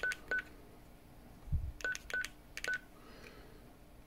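Keypad of a Baofeng BF-18H handheld ham radio beeping at each key press while letters of a channel name are typed in: two short beeps at the start, then three more around two seconds in. A low thump about one and a half seconds in.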